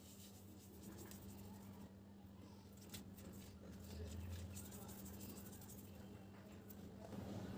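Faint wet rubbing and light clicks of fingers working salt into raw climbing perch on a plate, over a low steady hum.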